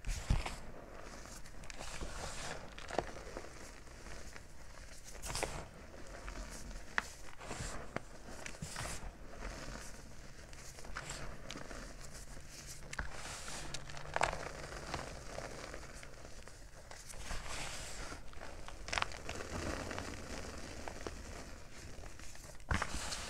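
Fingers pressing and squeezing into a heap of powdery gym chalk, making soft, irregular crunches and crackles.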